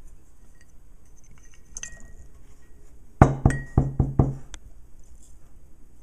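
A glass coffee-grounds container and a stainless steel espresso filter basket knocking together: a faint clink, then about five quick, loud clinking knocks in just over a second, each with a brief ring.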